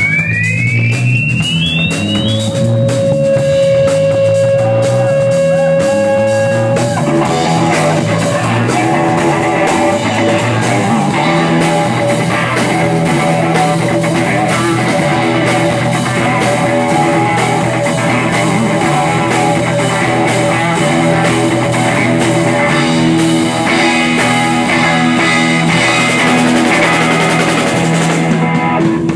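Live rock band with electric guitar, bass and drum kit. A high sliding note rises in pitch and settles on a held tone, then about seven seconds in the full band comes in loud and keeps playing.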